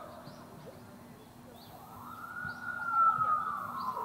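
Emergency vehicle siren wailing: one long tone that rises in pitch about two seconds in, then slowly falls, loudest near the end.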